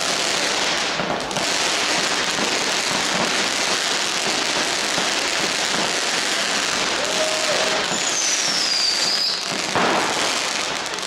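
Ground firework fountain spraying sparks with a continuous hissing crackle. A whistle falls in pitch near the end, and a single sharp bang comes at about ten seconds.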